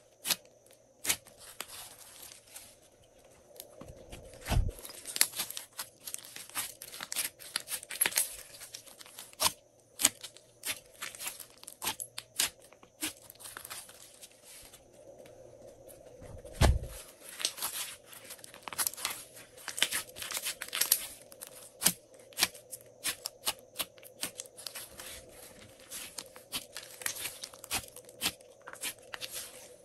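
Hands kneading and pressing glossy slime: a dense, irregular run of sticky clicks, pops and crackles as the slime squishes and pulls away from the fingers. Two dull thumps come, one about four and a half seconds in and one about halfway through.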